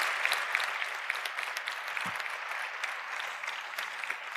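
Audience applauding, the clapping slowly dying away.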